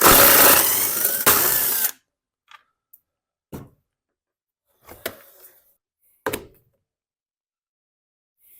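Power driver with a 5/16 socket spinning out the cover fasteners for about two seconds, its motor pitch wavering slightly. A few light clicks and knocks follow.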